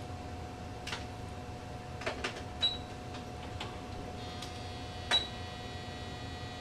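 Ultrasound machine's control panel clicking as measurements are placed: about seven scattered clicks, two of them with a short high beep, over a steady hum.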